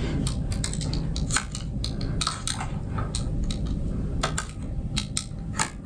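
Worn rubber cover being cut and worked off a BMW K75RT's metal foot peg: irregular clicks, scrapes and metallic clinks of the cutting tool against the peg.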